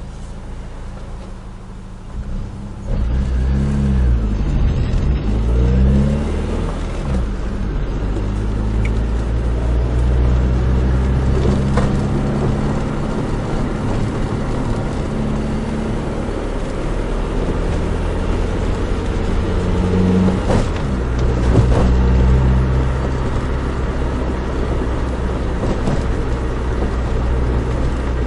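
Nissan Micra 1.3 four-cylinder petrol engine heard from inside the moving car. It gets louder about three seconds in, its revs rise and drop several times, and it then settles into a steady drone with road noise.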